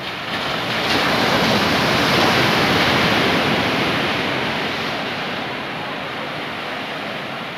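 Surf: a wave breaks and washes up the beach in a rush that swells over the first two seconds and then slowly dies away.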